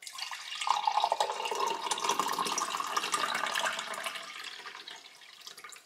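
Running water, growing fainter over the last couple of seconds.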